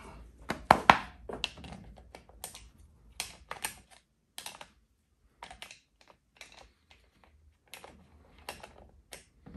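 Irregular light plastic clicks and clacks as the parts of a cordless hand-held grass shear are handled and fitted together, the loudest about a second in.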